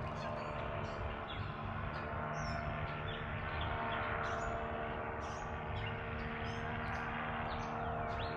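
Small birds chirping in many short calls over a steady mechanical hum of several unchanging tones.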